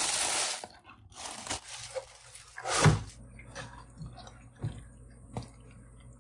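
Thin black plastic bag crinkling and rustling as hands pull it open, followed by a few scattered knocks and scrapes of a spatula in a nonstick pan, the loudest a dull knock about three seconds in.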